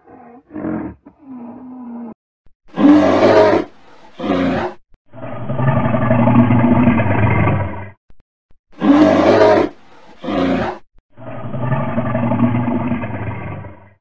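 Brown bears roaring. A few short low grunts come first, then twice over two short harsh roars followed by one long drawn-out roar.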